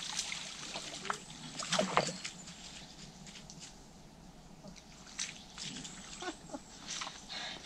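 Water splashing and sloshing as a hooked tench thrashes at the surface and is scooped into a landing net, with the heaviest splashes about two seconds in and a few smaller ones near the end.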